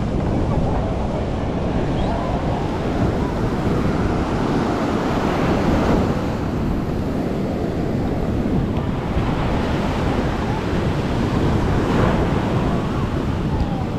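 Ocean surf breaking and washing up a sandy beach, with wind buffeting the microphone; the wash swells about midway and again near the end.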